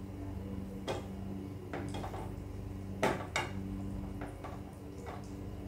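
Wooden spatula knocking and scraping against a frying pan and a plate as pasta is served: a few light, irregular knocks, the loudest about three seconds in, over a steady low hum.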